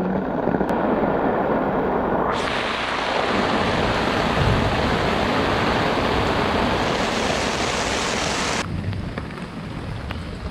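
Heavy rain pouring down. It gets suddenly louder and fuller about two seconds in, then suddenly drops to a softer patter of drops near the end.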